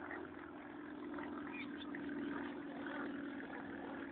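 Distant drone of a light aerobatic plane's piston engine and propeller as it flies away, a steady hum that swells slightly midway. Faint chirps sound over it.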